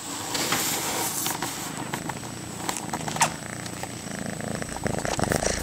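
Domestic cats purring: a mother cat and her older kittens pressed together, giving a close, continuous purr. There is one short sharp click about three seconds in.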